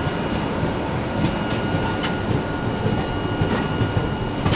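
Steady running rumble of the Swaraj Express passenger train, heard from on board, with a few sharp clicks from the wheels and track.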